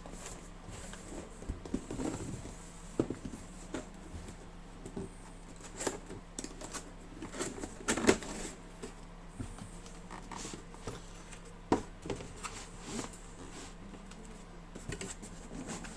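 A box being opened and its contents handled: scattered rustles, clicks and light knocks, a sharper knock about two thirds of the way through.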